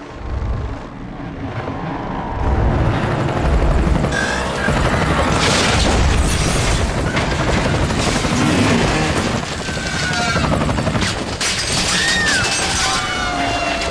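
Helicopter crash sound design: a low rotor and engine rumble, then from about four seconds in a long, loud crash with repeated metal impacts and scraping as the helicopter hits an ambulance and breaks up on the ground. Dramatic music runs underneath.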